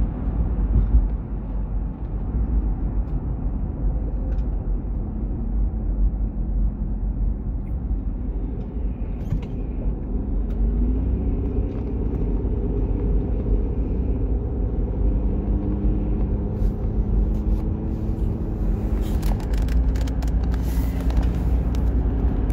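Car cabin noise while driving: a steady low rumble of engine and road. About ten seconds in a pitched note rises and then holds steady, and near the end a hiss swells.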